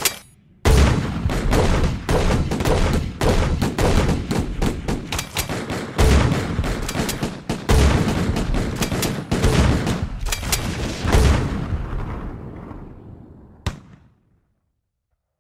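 Gunfire sound effect: one short shot, then a long run of rapid automatic fire mixed with several heavier booms. It tails off and dies away a little before the end.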